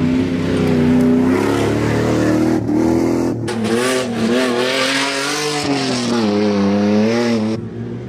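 Off-road 4x4 engines revving hard while driving over rough dirt, the pitch rising and falling with the throttle. The sound changes abruptly several times, as one vehicle's run gives way to another's.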